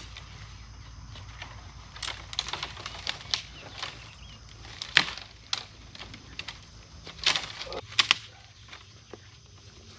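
Irregular knocks and clicks of hands-on fence repair work, the loudest about five seconds in and a close pair near the eight-second mark. A low steady hum underneath stops shortly before eight seconds.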